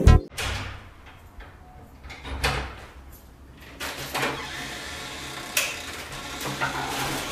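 Soft household handling noises, a few brief knocks and scrapes, over a low steady hum.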